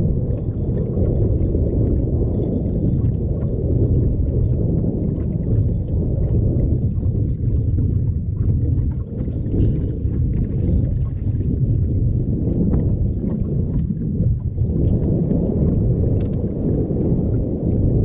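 Strong wind buffeting the microphone: a loud, steady low rumble that dips and surges.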